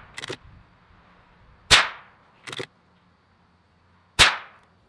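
Two shots from a Marlin 25N bolt-action .22 rimfire rifle, sharp cracks about two and a half seconds apart, each with a short fading echo. Between them come quieter clicks of the bolt being worked to chamber the next round.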